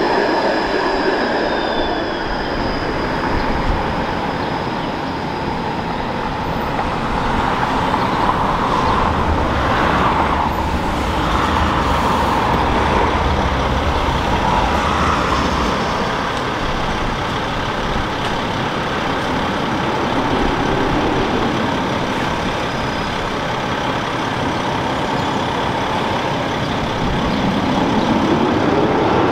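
Bombardier Flexity Outlook streetcar running along the street amid road traffic, its wheels and running gear giving a steady rumble. Near the end a streetcar's motors whine upward in pitch as it pulls away.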